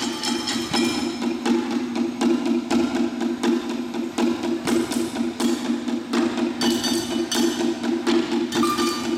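Percussion played on kitchenware: a quick rhythm of sharp strikes, many leaving high metallic ringing tones, over a steady low drone.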